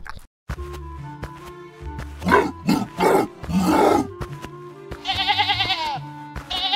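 Cartoon background music with three gruff animal roars about two to four seconds in, followed near the end by a wavering bleat.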